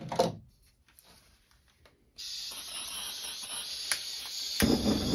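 Handheld gas torch: gas hissing steadily from the nozzle once the valve is opened, a single click of the igniter, then the flame catches with a sudden, louder, steady rushing sound near the end.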